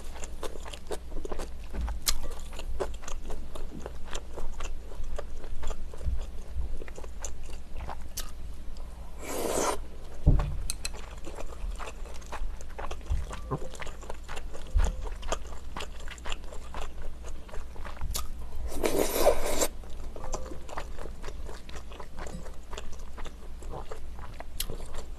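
Close-miked eating of rice cake soup with glass noodles: wet chewing and small mouth clicks, with two longer slurps about ten and nineteen seconds in.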